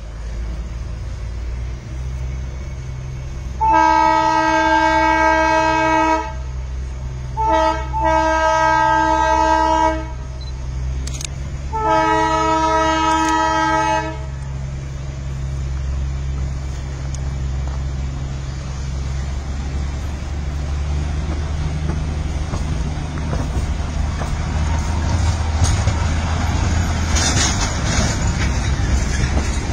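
Darjeeling Himalayan Railway narrow-gauge locomotive sounding its whistle in three long, steady blasts a few seconds apart, over the constant low rumble of the running train. Near the end the rumble and rattle of the train grow louder as the coaches pass close by.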